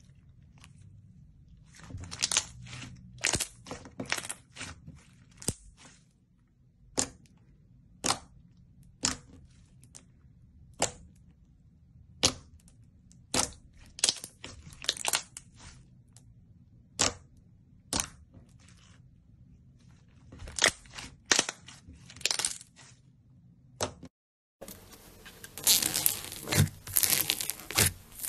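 Slime being pressed and worked by hand, trapped air popping out in sharp clicks and crackles at irregular intervals. After a cut about 24 seconds in, a denser run of crackling follows.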